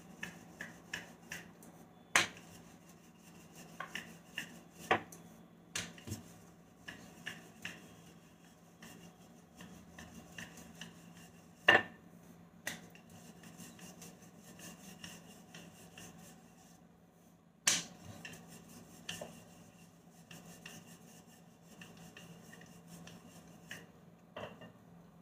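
Wooden rolling pin rolling out dough on a flour-dusted granite counter: soft rubbing and scraping, broken by scattered knocks and taps as the pin and hands touch down on the stone. A faint steady hum runs underneath.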